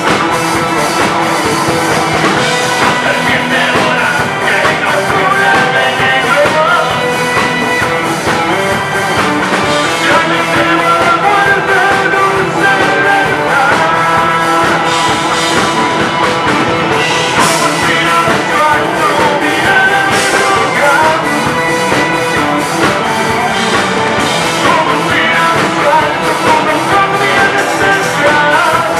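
Live punk rock band playing loud: electric guitar, bass guitar and drums, with a singer's vocals over them.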